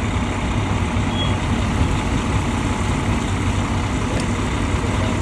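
Steady low rumble of an idling fire engine, mixed with wind noise.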